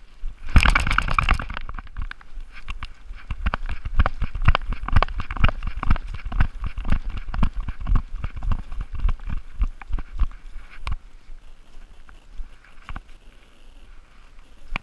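A chocolate Labrador running through woodland with a GoPro strapped to it: its strides jolt the camera into irregular thumps and knocks, a few a second, over the rustle of leaves and brush. There is a loud burst of rustling about half a second in. The knocks thin out after about eleven seconds.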